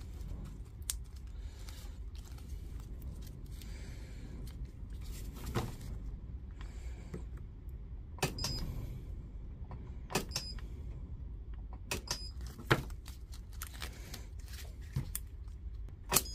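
Battery spot welder tack-welding nickel strip onto 18650 cells: a sharp snap every few seconds, several of them followed by a short high beep, over a low steady hum.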